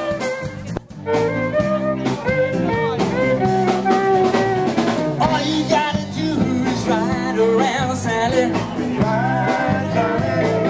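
Live band playing pop-rock on electric guitars and drum kit, with a brief drop in the sound about a second in before the full band carries on.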